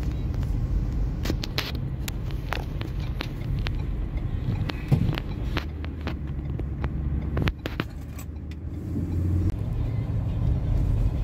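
Steady engine and road rumble inside the cabin of a moving Ford Ranger, with a low engine note swelling through the middle. Scattered sharp clicks and knocks sound over it.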